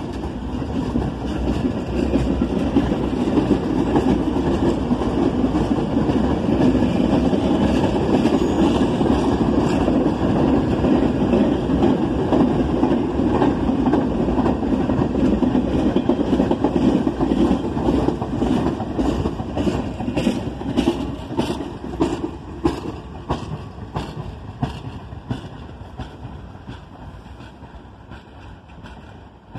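An R68 subway train running past on the tracks: a loud, steady rumble of steel wheels on rail. In the second half comes a run of clicks as the wheels cross rail joints, and the sound fades as the train pulls away.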